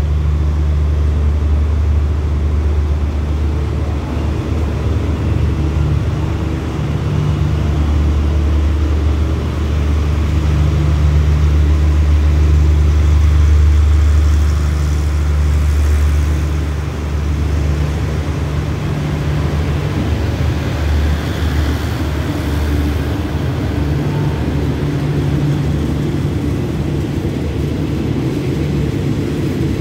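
Passenger train moving slowly through a station platform: a steady low rumble that swells about halfway through, then eases.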